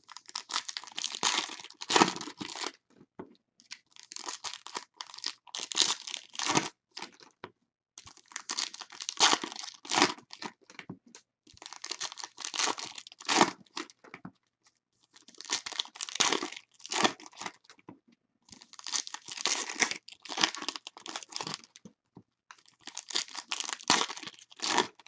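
Silver foil packs of 2017 Bowman Chrome baseball cards torn open one after another, the wrappers crinkling and tearing as the cards are pulled out. The rustling comes in about seven bouts a few seconds apart.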